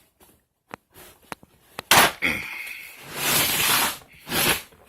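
Plastic packaging being opened: a few light clicks, a loud snap about two seconds in, then plastic wrap crinkling and tearing, loudest in the second half, with a short crackle near the end.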